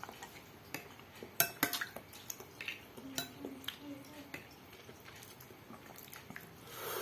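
Metal spoon and fork clinking and scraping against a glass bowl while stirring instant noodle soup, in scattered sharp clinks, the strongest about one and a half seconds in and again around three seconds in.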